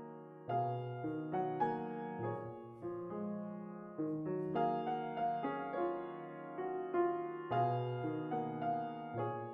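Slow, calm background music on a keyboard, with a new note or chord struck every half second to a second, each one fading out.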